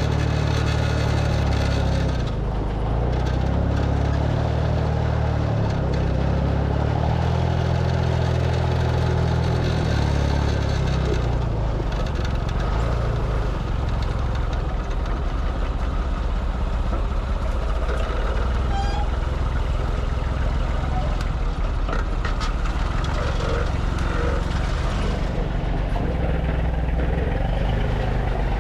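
Truck engine running under a steady wash of road and mechanical noise, its engine note stepping up and down several times in the first ten seconds and then running more evenly.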